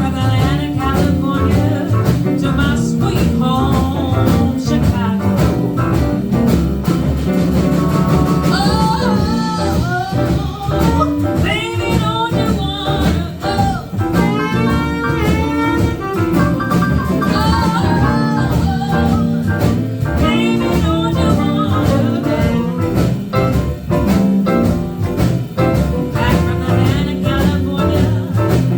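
Live band playing a jazz-blues number, with a bending, sung lead line over the band through the middle.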